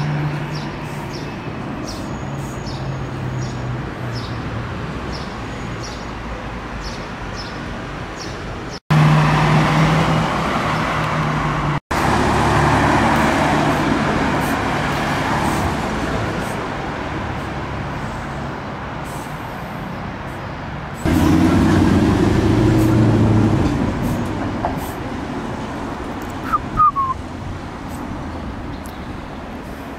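Car engines in street traffic: engines idling and pulling away, with louder stretches as cars go by about 9 to 15 seconds in and again about 21 to 24 seconds in. A short high chirp comes near the end.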